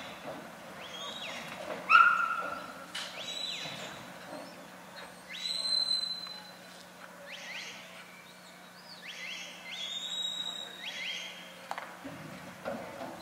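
A herding handler's whistle commands to border collies working cattle: a series of short, high whistles, some rising and some falling in pitch, the loudest about two seconds in and a longer held one near the middle.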